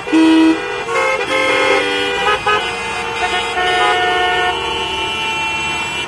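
Many vehicle horns honking at once in jammed traffic, overlapping blasts at several different pitches. The loudest blast comes right at the start, and the honking keeps up without a break.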